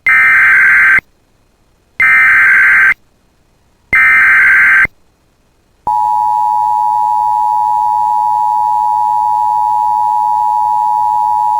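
Emergency Alert System alert opening: three one-second bursts of SAME header data tones, each about two seconds apart, then about six seconds in the long steady EAS attention tone begins.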